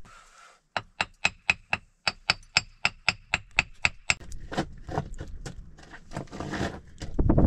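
A metal hand tool tapping on stone in an even run of sharp, ringing taps, about four a second, as stones are worked into a dry-stone wall. After that come softer, irregular scraping and crunching of dirt and stone, louder near the end.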